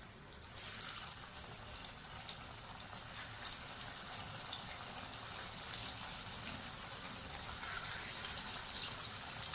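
Hot oil sizzling and crackling as slices of steamed colocasia-leaf roll (aloo wadi) go into it for deep frying. The crackle starts about half a second in and grows slowly louder as more pieces are added.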